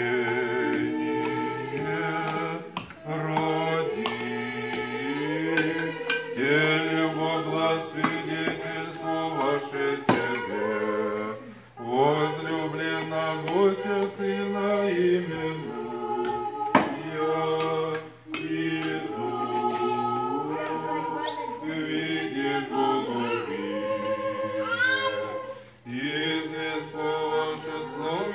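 A choir singing Orthodox church chant a cappella in several parts, in long sustained phrases with short breaks between them.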